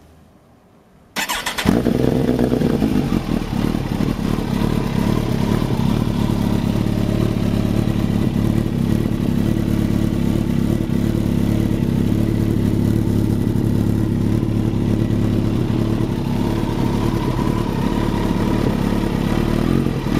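Kawasaki ZZR1400 inline-four motorcycle engine, breathing through a baffle-less titanium slip-on silencer, starts about a second in. Its revs settle briefly, then it idles steadily.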